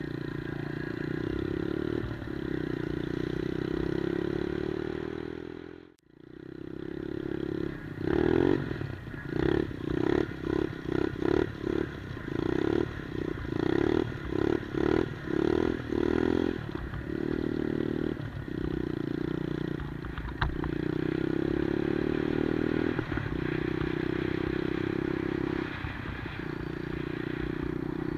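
110cc single-cylinder engine of a Monkey-style minibike running. A few seconds in, the sound drops out almost completely. The engine then comes back and rises and falls in quick short pulses, about one and a half a second, for several seconds before it settles to a steady run.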